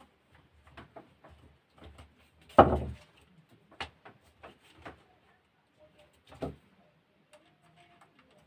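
Irregular clicks and knocks of small hard parts being handled, with one louder knock about two and a half seconds in and another past six seconds.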